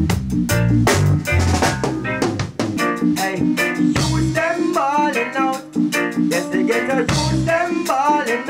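Live reggae band jamming: steady drum-kit hits over a deep bass line, with a man's voice singing into a microphone over the groove from about halfway through.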